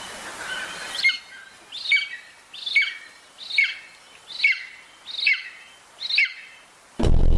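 A bald eagle calling: a series of seven high, thin, falling notes at an even pace, a little under one a second. Loud music comes back in just before the end.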